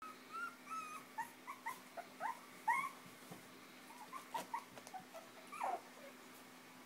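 Five-week-old Chinese Crested puppies squeaking and whimpering as they jostle to nurse: a string of about fifteen short, high, rising squeaks, with one longer falling whine near the end.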